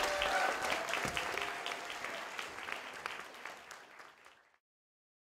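Audience applauding, a dense patter of claps with a few voices over it at first. It fades away and cuts to silence about four and a half seconds in.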